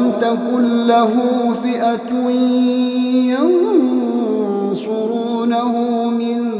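A man's voice chanting Quran recitation, drawing out one long, steady note with a short rising-and-falling melodic turn about three and a half seconds in.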